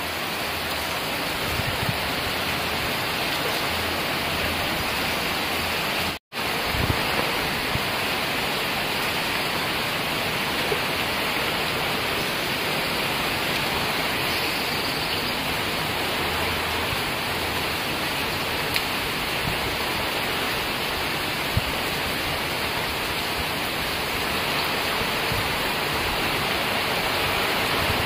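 Heavy rain falling, a steady even hiss with a few louder drops ticking now and then. The sound cuts out sharply for a moment about six seconds in.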